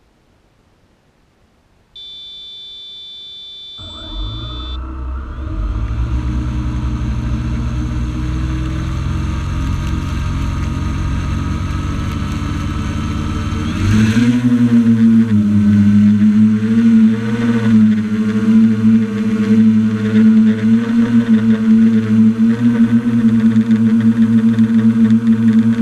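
A drone's electric motors: a steady electronic tone for about two seconds, then the motors start spinning about four seconds in, and about ten seconds later they rise sharply in pitch and loudness as the drone lifts off. They then settle into a steady whir that wavers slightly as it flies.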